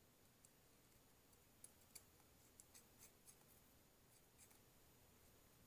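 Near silence, with a few faint small metal clicks of a nut being threaded onto a steel threaded rod by hand, spread over a couple of seconds.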